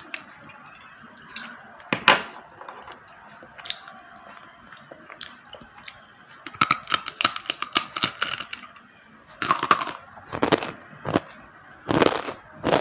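Slate pencils being bitten and chewed: one sharp snap about two seconds in, a quick run of crunches in the middle, then single crunches towards the end.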